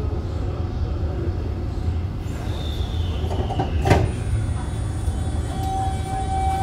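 Interior running sound of a Toei Asakusa Line 5300-series subway car, heard from above its VVVF inverter, with a steady low rumble throughout. There is a falling whine, then a single sharp knock about four seconds in, and a steady electrical tone sets in near the end.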